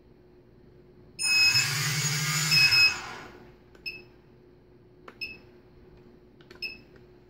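Quadcopter's brushless motors, propellers off, spinning up briefly about a second in and running for under two seconds before winding down. Three short high beeps follow.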